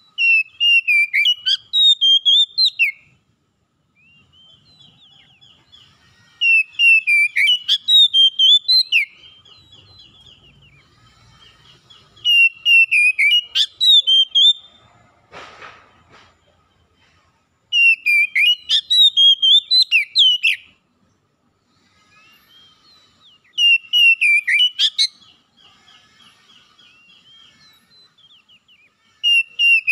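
Oriental magpie-robin singing: loud, varied whistled phrases of two to three seconds, repeated about every six seconds, with soft twittering in the pauses. A brief rustle about halfway through.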